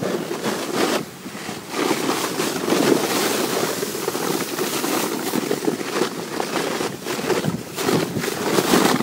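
A sled sliding fast over snow while towed on a rope, a steady rushing and scraping noise mixed with wind on the microphone; the noise dips briefly about a second in.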